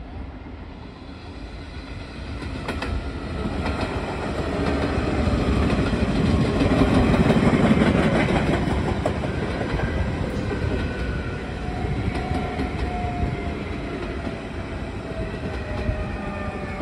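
Two coupled DSB class ER electric multiple units approaching and passing along the platform. A rumble swells to its loudest about seven seconds in, then the wheels clatter over the rail joints as the carriages go by, with a faint, slightly falling whine in the second half.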